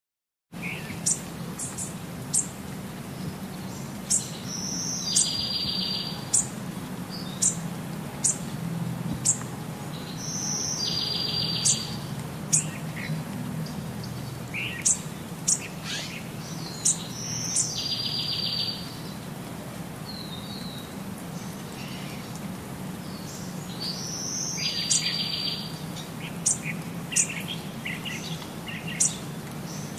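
A bird singing, with short sharp chirps and a repeated song phrase that ends in a rapid trill about every six seconds, over a steady low hum.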